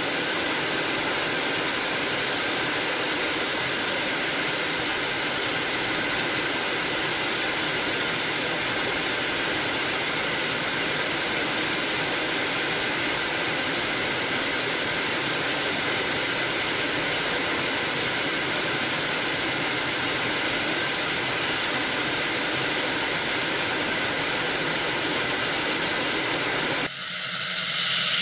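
Steady in-flight cockpit noise of an L-39 jet trainer, the rush of its AI-25TL turbofan and the airflow held at a constant level. About a second before the end it changes abruptly to a louder rush with a high whine.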